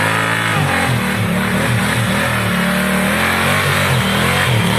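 Adventure motorcycle engine running under changing throttle, its pitch rising and falling repeatedly as it revs up and eases off.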